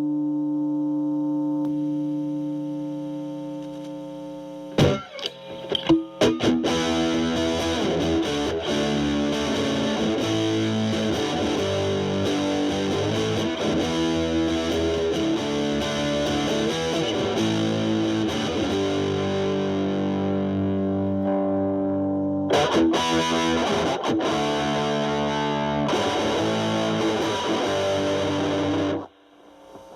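Stratocaster electric guitar played through a Boss DS-2 Turbo Distortion pedal in turbo mode, its distortion knob set low, into the clean channel of a Marshall Valvestate amp. A held chord rings and fades, then from about five seconds in distorted chords and riffs are played, with a brief break near the end.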